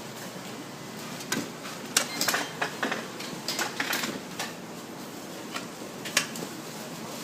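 Garments and packaging being handled: irregular clicks and short rustles, busiest in the first half, with no steady rhythm.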